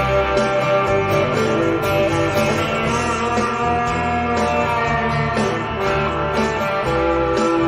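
Music: a guitar-led rock-blues recording with bass and a steady pulse.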